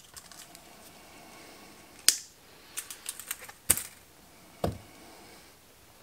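Sharp clicks and snips of small flush cutters cutting thin wire from a spool, with light ticks of tools being handled. The loudest snaps come about two seconds in and just before four seconds, followed by a duller knock.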